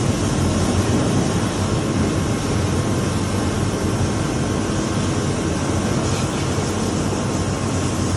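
CNC vertical pull-up internal broaching machine running: a steady, even mechanical noise with a faint constant whine, no strokes or impacts standing out.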